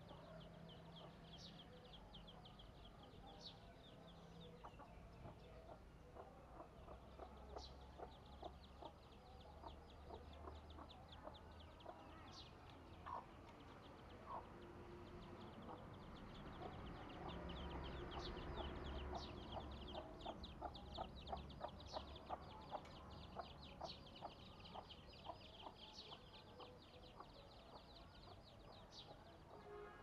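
A chicken clucking faintly, with runs of light taps as it pecks at its reflection on a parked car, over a rapid high chattering that comes and goes.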